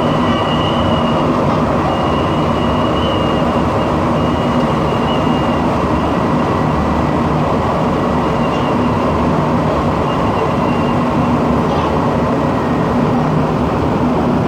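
Montreal metro rubber-tyred train running, a loud steady rumble with a steady high-pitched whine over a low hum.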